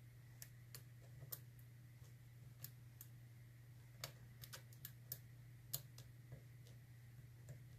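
Faint, irregular light clicks of a lock pick working the dimple pins and sliders inside a Yale Platinum euro cylinder, over a steady low hum.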